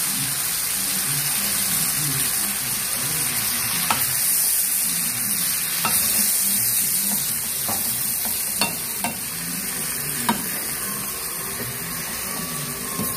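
Pork and bamboo shoot strips sizzling as they are sautéed in a frying pan, stirred with a wooden spatula, with a few sharp taps of the spatula against the pan.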